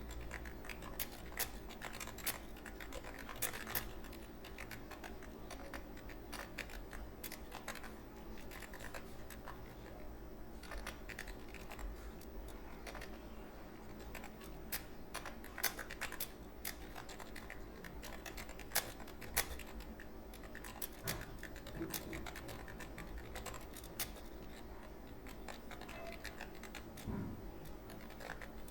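Continuous typing on a computer keyboard: a quick, irregular run of key clicks, several a second, during a timed typing test.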